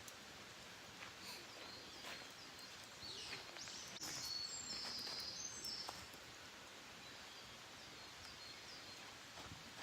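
Faint wood campfire crackling with scattered small pops, while a wild bird gives a high call with a falling sweep from about three to six seconds in.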